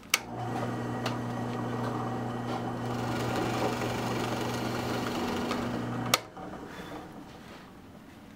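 A small electric power tool clicks on, runs steadily with a low hum for about six seconds, then clicks off.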